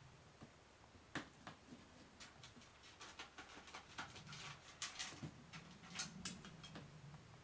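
Faint scattered taps, scratches and rustles of a cat's paws moving on a cardboard box and pawing at papers, a few at a time and more often in the second half.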